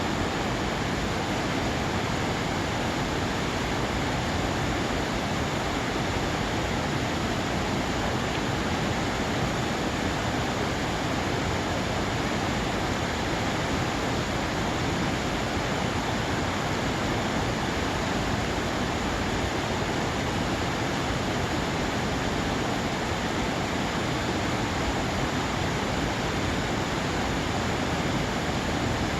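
Mountain valley stream rushing over rocks: a steady, even rush of water with no change.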